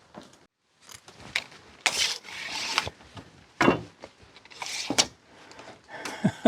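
Pieces of timber being handled and shifted about: several sharp wooden knocks with short scraping and rustling between them.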